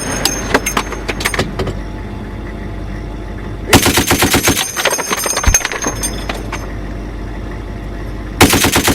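Browning M2 .50-calibre heavy machine gun firing short bursts of rapid shots, one about four seconds in lasting about a second and another starting near the end. Between the bursts there are scattered metallic clinks over a steady low rumble.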